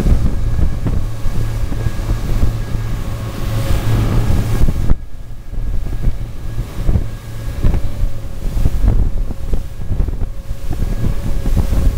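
Twin outboard motors pushing a boat at speed through choppy water, with a steady engine whine and heavy wind buffeting on the microphone.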